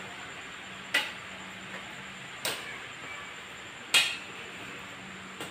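Tips of stick crutches tapping on a hard floor with each step of a crutch walk: three sharp taps about a second and a half apart, then a fainter one near the end, over a faint steady hum.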